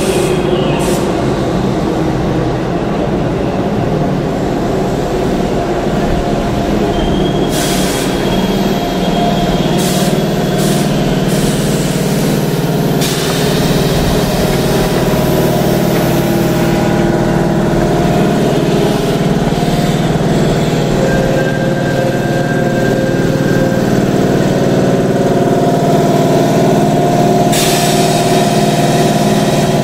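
Keihan 2600-series train standing at a platform, its underfloor air compressor running with a steady mechanical hum that grows stronger about nine seconds in. Several short hisses of air are heard over it.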